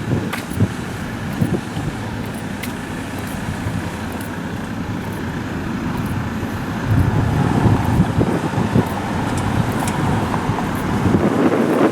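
Road traffic going by: a steady rumble of tyres and engines that grows louder about seven seconds in, as a vehicle passes close.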